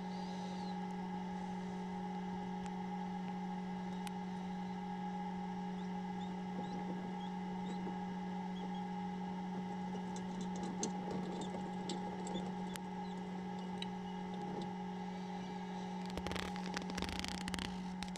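Steady hum of an egg incubator's fan, with faint high peeps from newly hatched Chinese painted quail chicks. Near the end there are a couple of seconds of scraping and light knocks as eggs shift on the mesh floor.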